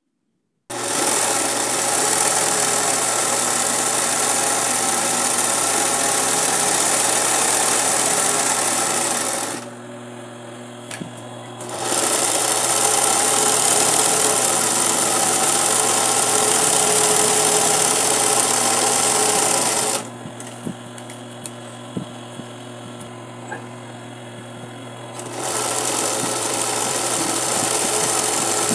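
A 20U-type industrial zig-zag sewing machine running at a steady speed, satin-stitching the edge of a fabric appliqué held in a hoop. It starts about a second in and stops twice for a couple of seconds each time; a low hum and a few clicks remain in the pauses.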